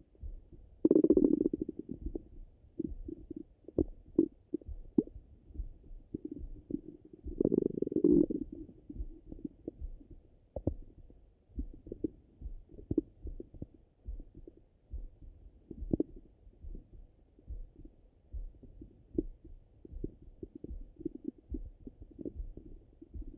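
Bowel sounds of a full stomach heard through a stethoscope: two louder gurgles, one about a second in and one around eight seconds in, with many short faint pops and clicks between them.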